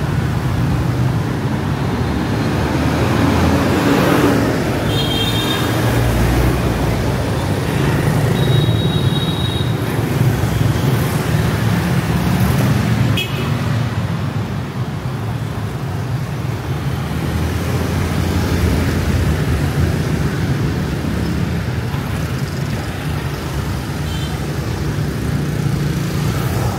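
Steady city street traffic: the running engines and tyre noise of passing vehicles make a continuous rumble. A few short high-pitched tones come through now and then.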